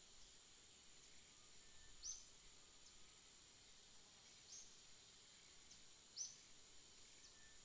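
Faint natural ambience: a steady high-pitched drone, with a short high chirp heard three times, roughly every two seconds.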